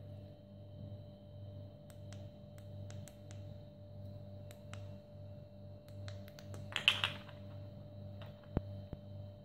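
Light plastic clicks and taps of plugs, an adapter and cables being handled on a tiled floor, scattered through, with a louder cluster of clicks about seven seconds in and a single sharp click soon after. A steady low hum runs underneath.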